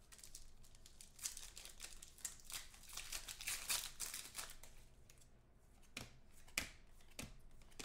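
Trading cards and plastic sleeves being handled: faint crinkling and rustling, thickest in the middle, then a couple of sharp clicks near the end.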